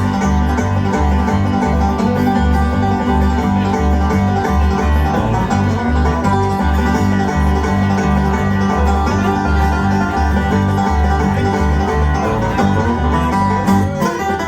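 Bluegrass band playing an instrumental passage: banjo and guitar over a steady pulse of low bass notes.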